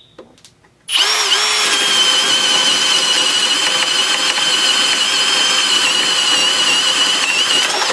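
Milwaukee M18 Fuel compact brushless drill driver (2701-20) boring a 1-inch spade bit through a pine 2x4. The motor starts about a second in with a high whine, dips in pitch briefly as the bit bites, then holds steady under load and stops suddenly near the end once the bit is through. It went through easily.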